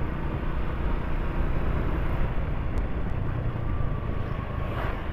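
Motorcycle riding steadily, its engine hum mixed with a steady low rumble of wind on the microphone.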